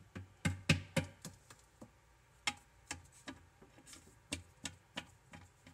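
Irregular light taps and clicks, about fifteen, bunched in the first second and a half: a small plastic toy figure knocking and hopping along a wooden tabletop.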